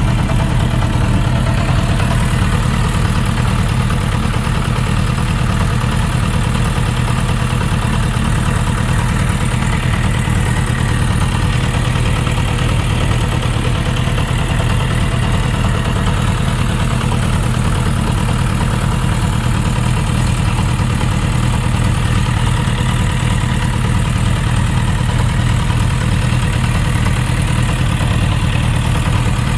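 Suzuki RF900's inline-four engine idling steadily with a ticking, knocking sound. It could be connecting-rod bearing clearance, though the owner has found no metal shavings in the oil.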